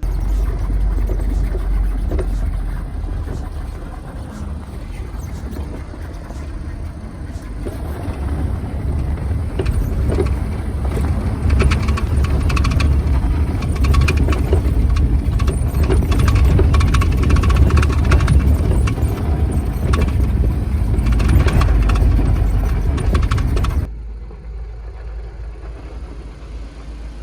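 Mahindra Thar's turbo-petrol four-cylinder engine running under load off-road, a heavy low rumble with many sharp knocks and clatters over it. It drops suddenly about three seconds before the end and carries on more quietly.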